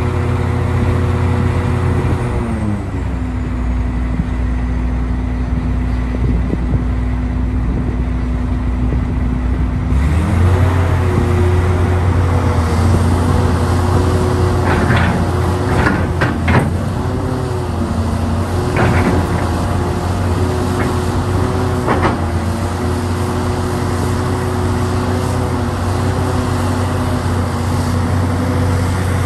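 Hitachi Zaxis 670 hydraulic excavator's diesel engine running steadily under a digging and loading cycle. Its speed drops about two or three seconds in and rises again about ten seconds in. A few short clanks come from the bucket and machine between about fifteen and twenty-two seconds in.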